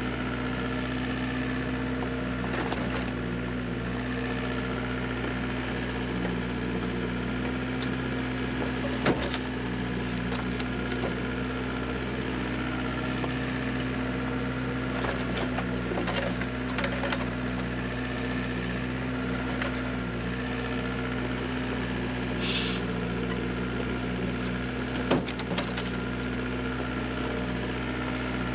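Excavator diesel engine running steadily, with a few sharp knocks scattered through and a brief hiss about two-thirds of the way in.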